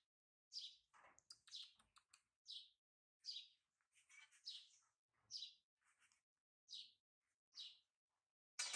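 Faint small-bird chirping: short high chirps that sweep downward, repeated about once a second. A louder, sharper sound comes near the end.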